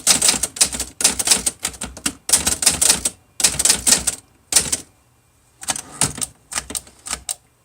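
Olivetti-Underwood Studio 44 manual typewriter being typed on: quick runs of typebar strikes, a pause about five seconds in, then a few more separate strikes.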